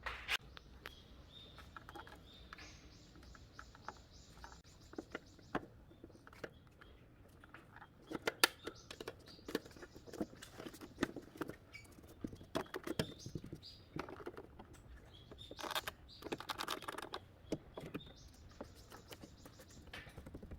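Irregular light clicks, taps and knocks of hands and tools handling parts, with a quick run of even ticks a few seconds in and denser knocking in the second half.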